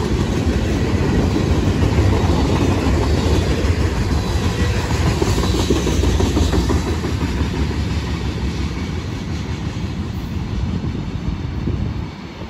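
Freight cars of a long train rolling past at track speed, a steady wheel rumble with clickety-clack on the rails. The sound eases over the last few seconds and drops off sharply near the end as the last car goes by.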